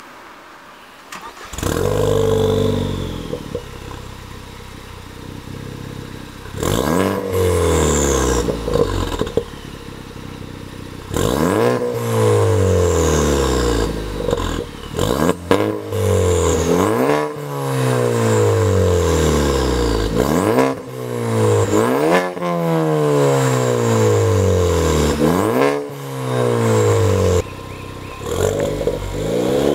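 Ford Focus ST mk3's 2.0 EcoBoost turbocharged four-cylinder, heard from behind through a non-resonated turbo-back exhaust. About two seconds in it starts with a sharp flare and settles to idle. It is then revved in repeated blips, each rising quickly and falling back, coming about every two seconds in the second half.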